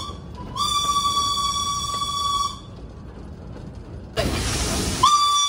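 Steam whistle of steam locomotive B 5112 sounding one steady, single-pitched blast that breaks off for a moment just after the start, then holds until about two and a half seconds in. About four seconds in comes a loud rush of hiss lasting about a second, and the whistle sounds again near the end.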